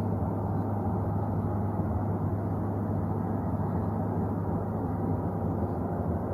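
Steady, unbroken low droning hum with no rise or fall, of the kind reported as an unexplained 'strange sound' in the sky.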